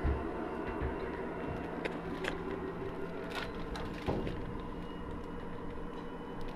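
Steady background hum with a few light knocks and clicks, the clearest near the start and about four seconds in.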